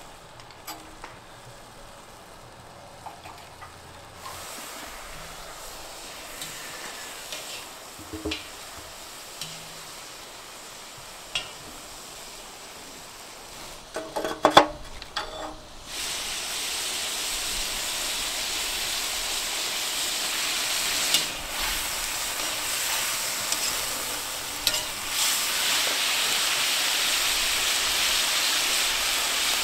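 Chunks of meat frying in a cast-iron cauldron: a steady, loud sizzle that starts suddenly about halfway through and holds to the end. Before it there is a fainter hiss with scattered clicks, and a short run of knocks just before the sizzle begins.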